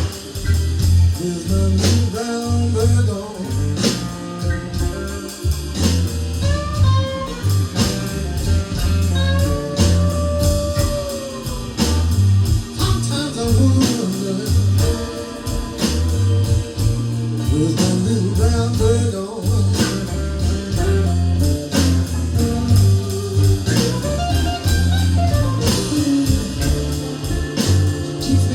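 Live blues band playing an instrumental passage: an electric guitar lead with bent, gliding notes over bass and a steady drum beat.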